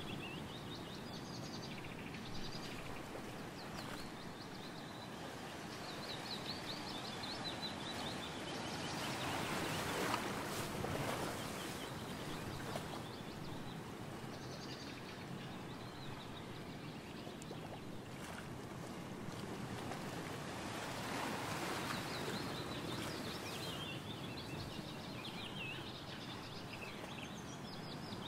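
Outdoor ambience: small birds chirping in short repeated trills over a steady noisy background, which swells about ten seconds in and again around twenty-one seconds.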